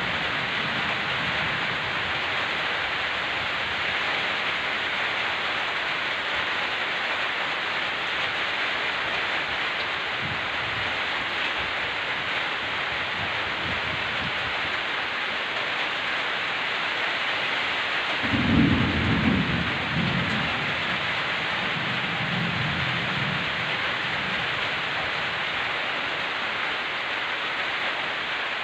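Steady heavy rain, with low rolls of thunder: a faint one about ten seconds in, the loudest about two-thirds of the way through, and a softer roll soon after.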